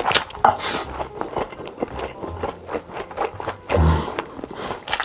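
Close-miked slurping of a big mouthful of spicy instant noodles, with wet chewing and mouth clicks; a brief low hum from the eater about four seconds in.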